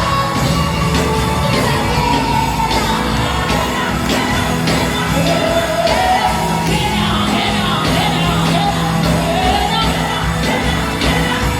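Live gospel worship music: a band with sustained bass notes and a steady beat under singing, with shouts from the crowd.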